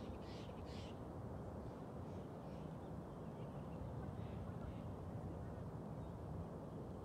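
Steady low rush of wind on the microphone, with a few faint short high-pitched calls near the start.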